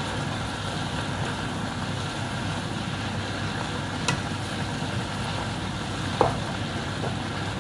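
Steady drone of a kitchen exhaust fan over vegetables frying in a pan, with two light knocks about four and six seconds in.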